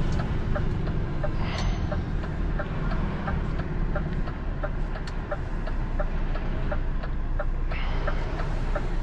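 DAF recovery truck's diesel engine running, heard from inside the cab, with the turn-signal relay ticking steadily at about three ticks a second. Short hisses come about one and a half seconds in and again near the end.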